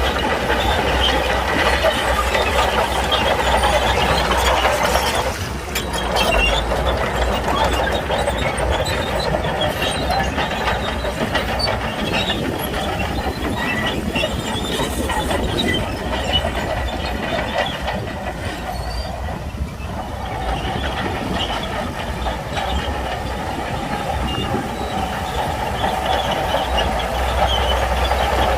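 Crawler bulldozer at work pushing stone: the diesel engine runs under load while the steel tracks clatter and rock grinds. The sound eases briefly twice and then picks up again.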